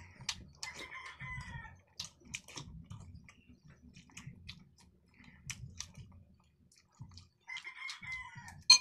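Close-up eating sounds: chewing and small mouth clicks as miswa noodle soup is eaten from a metal spoon. A rooster crows twice in the background, about a second in and again near the end, and a sharp click is the loudest sound just before the end.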